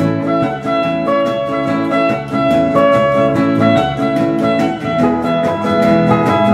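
Boeremusiek band playing: a squeezebox carries a held-note melody over acoustic and electric guitars strumming a steady, even vamp.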